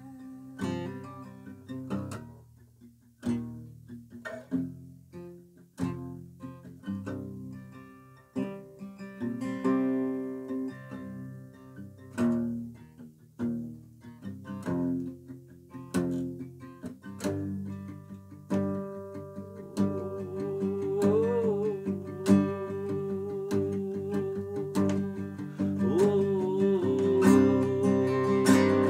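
Acoustic guitar played solo: an instrumental passage of picked notes and strums, sparse with short pauses at first, then fuller and louder in the second half.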